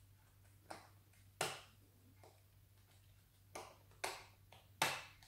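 About five short, sharp clicks and taps, irregularly spaced, from fingers picking and peeling a strip of tape off a candy-filled heart container.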